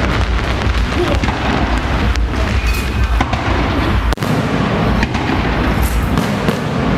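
A barrage of electrically fired aerial fireworks: a dense, continuous run of booms and crackles with a deep rumble underneath, briefly dipping about four seconds in.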